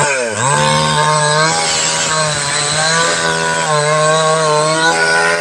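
Stihl two-stroke chainsaw picks up from a brief dip in revs, then runs at steady high revs under load as it cuts into a log, the pitch sagging slightly now and then. The chain has just been re-sharpened on an electric sharpener after its teeth were worn down.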